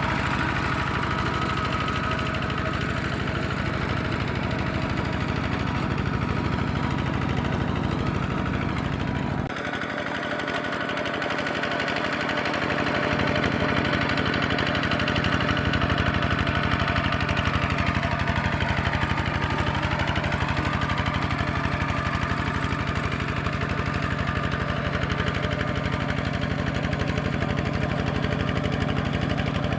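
Kubota RT140 walk-behind tractor's single-cylinder diesel engine running steadily under load as it ploughs through paddy mud. About ten seconds in, the deep rumble drops away and builds back over the next few seconds.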